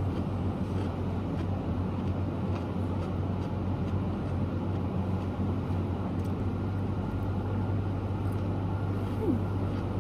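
Steady low background hum with a few faint, scattered clicks of someone eating.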